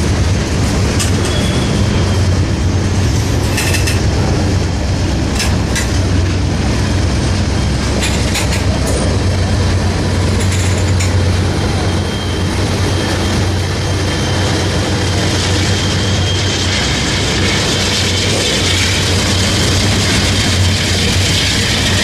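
A freight train of gondola cars rolling past, with a steady rumble of wheels on rail and scattered sharp clicks from the wheels over the rail joints. In the last few seconds a thin high squeal joins in.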